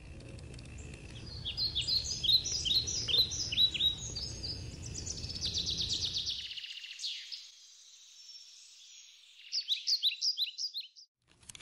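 Songbirds singing: runs of quick, downward-sliding chirps, a fast trill in the middle, and another run of chirps near the end. Under them a low outdoor rumble that cuts off about six and a half seconds in.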